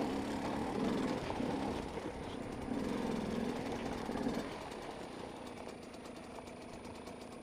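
Dirt bike engine running at low revs, pitch rising and falling as the bike picks its way over rough lava rock, then easing back to a quieter steady idle about halfway through.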